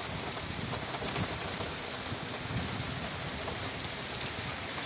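Steady heavy rain falling on a wet asphalt street and lawn: an even hiss with fine scattered drop patter.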